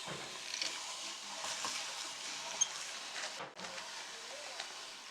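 Goldfish crackers being crushed in a meat grinder: a dense, steady crunching crackle of many small snaps, with a brief gap about three and a half seconds in.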